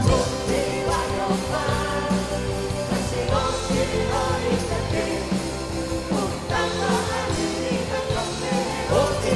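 Live worship band music, with electric guitar, bass and keyboard, and voices singing a Korean praise song over it.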